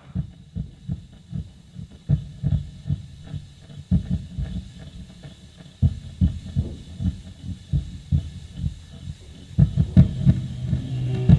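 Heartbeat sound effect: deep thumps in a fast, uneven beat, about three or four a second, growing louder and denser near the end. A steady low hum comes in just before the end.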